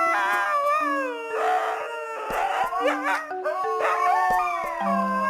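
A dog howling: drawn-out wavering calls that slide down in pitch, one after another, over background music with held low notes.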